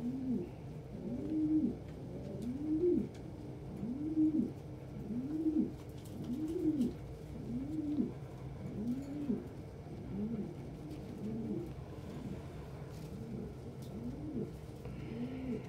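Domestic pigeon cooing: a steady run of low coos, each rising then falling, about one every second and a bit, growing fainter toward the end.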